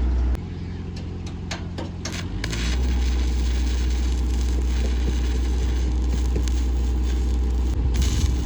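Electric welding arc: a few sharp pops and starts in the first couple of seconds, then a steady crackling sizzle from about two and a half seconds, broken briefly near the end, over a steady low engine hum.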